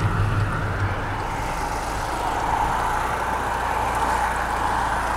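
Car driving along a highway: steady road and engine noise, with a deeper rumble that eases about a second in.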